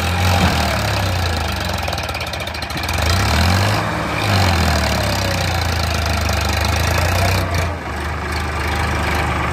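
Sonalika DI 50 tractor's diesel engine running as it pulls a loaded soil trailer. The engine is steady, with its speed wavering briefly about three to four seconds in.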